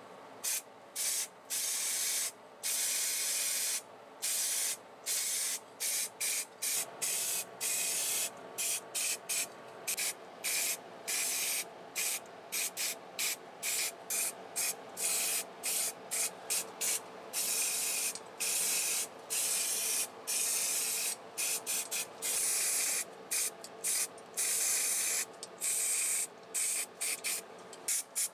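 Spray paint hissing from the nozzle in many short bursts of about a second, stopping and starting again and again as engine parts are coated, over a steady background hum.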